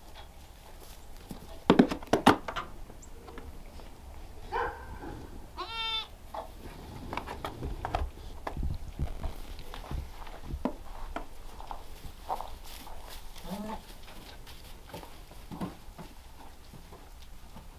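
Kiko goat kids bleating: one quavering, high bleat about six seconds in and a few shorter, fainter calls later. Two or three sharp knocks about two seconds in are the loudest sounds, with light scattered clicks and rustles in between.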